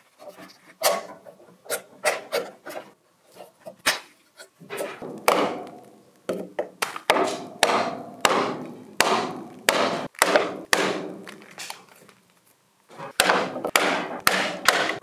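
Steel bar striking and levering out the slices of wood between saw kerfs in an old oak beam: irregular sharp wooden knocks and cracks as the pieces split and break off, often several a second, with brief pauses about four seconds in and near the twelve-second mark.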